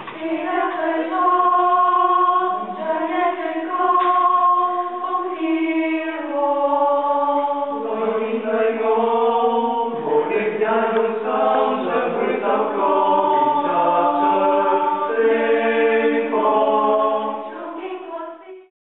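Mixed choir of men and women singing a cappella in several parts, holding chords that change every second or so, fading out at the end.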